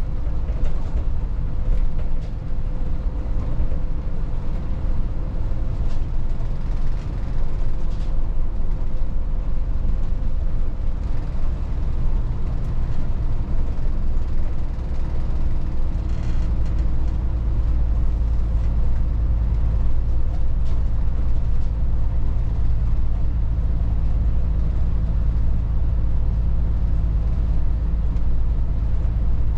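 Volvo 8900 city bus driving, heard from inside: a steady deep engine and road rumble, with a few short knocks or rattles in the first half.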